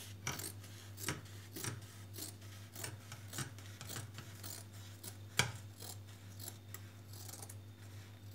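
Scissors cutting through fabric: a run of short snips, about one to two a second.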